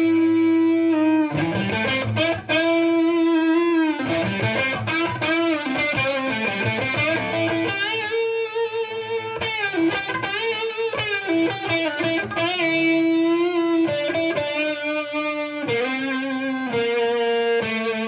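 Overdriven electric guitar: a Gibson Les Paul R9 reissue through a jumpered, cranked 1972 Marshall Model 1986 50-watt Bass head and a Marshall 4x12 cabinet with G12 Vintage speakers, with no pedals. It plays a lead line of sustained notes with string bends and vibrato, between quicker picked phrases.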